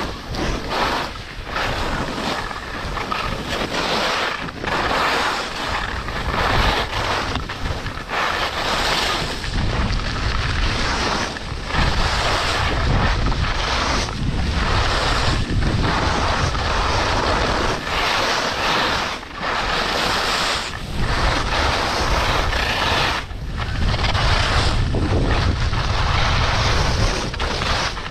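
Wind buffeting the microphone of a skier's body-worn camera during a fast run, mixed with the hiss and scrape of skis on firm, fast snow. The noise swells and dips every second or two, with a heavier low rumble in the second half.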